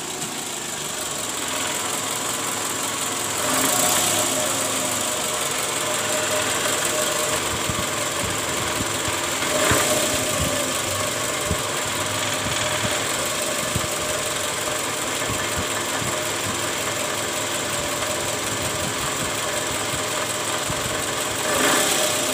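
Toyota 2AZ-FE 2.4-litre four-cylinder engine idling soon after a cold start, with a rough 'krrrr krrrr' rattle and vibration. The mechanic traces the noise to the bottom of the engine near the oil pan, to a worn, loose number 1 balancer shaft gear; the roughness typically fades once the engine is warm.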